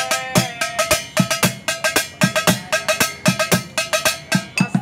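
Improvised street drumming: two sticks beat a fast, steady rhythm on a plastic jerrycan and a glass bottle, mixing dull low thuds with ringing, pitched clinks.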